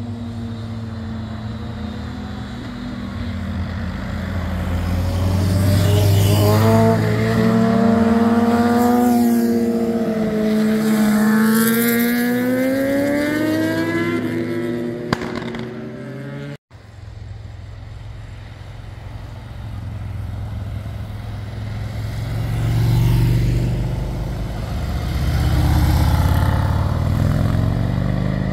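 Motorcycle engines as bikes ride past through a bend, their pitch rising and falling as they accelerate and pass. The sound cuts off sharply about halfway through, then lower-pitched motorcycle engines swell past twice near the end.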